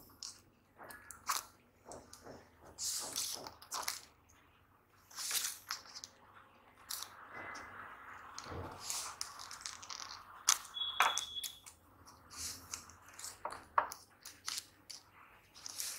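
Tailor's chalk scratching short marks onto a stiff strip of buckram, with rustling and light knocks as the tape measure and fabric are handled; a series of brief scratches with pauses between.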